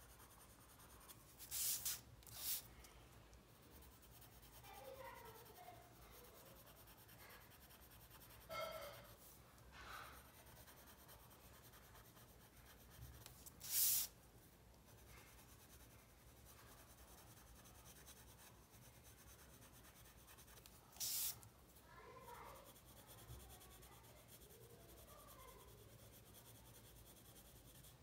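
Quiet scratch of a pencil shading on paper, with a few brief louder swishes of the sheet sliding as it is turned on the cutting mat, the loudest about halfway through.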